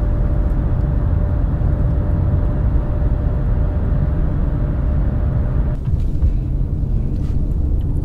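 Car driving along a highway, heard from inside the cabin: a steady low rumble of engine and tyre road noise, with a faint steady whine that stops about six seconds in.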